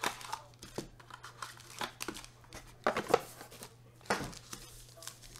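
Foil trading-card packs crinkling and a cardboard card box being handled, in a string of short rustles and light knocks about a second apart.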